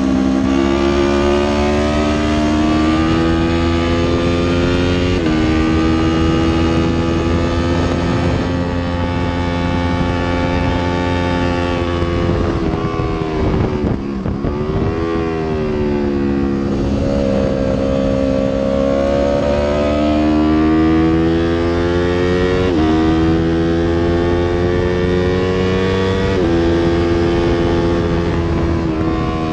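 Yamaha R3's 321 cc parallel-twin engine under hard acceleration, climbing in pitch and shifting up several times, each shift a sudden drop in pitch. About halfway the revs fall away and bottom out as the bike slows, then it pulls up through the gears again.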